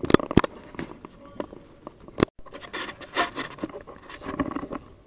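Rubbing and scraping with a few sharp clicks: two right at the start and one a little over two seconds in.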